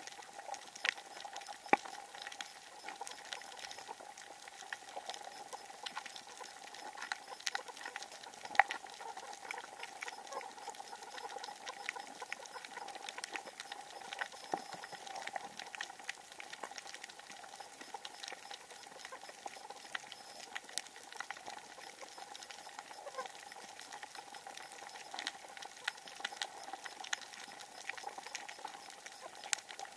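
Underwater sound of a coral reef heard through a camera's waterproof housing: a dense crackle of sharp clicks and pops over a steady hiss and hum, with a few louder pops.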